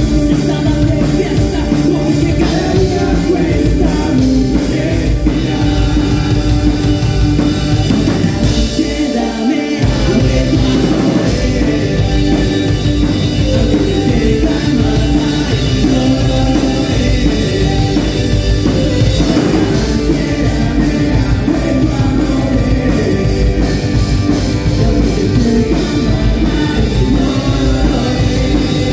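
Rock band playing loud with drums, bass and guitars under a singing voice. The low end drops out for about a second, some nine seconds in, before the full band comes back in.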